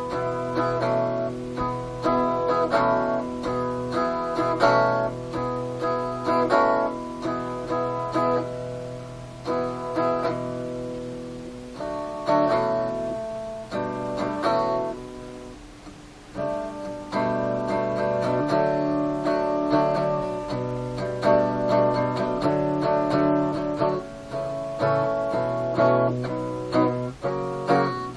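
Acoustic guitar played, chords strummed and picked in a steady run. The playing thins out briefly a little past the middle, then picks up again.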